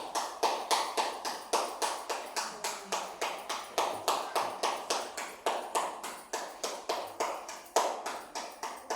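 A quick, steady beat of sharp taps, about four a second, kept up as the timing beat of a pass-the-parcel game, stopping right at the end.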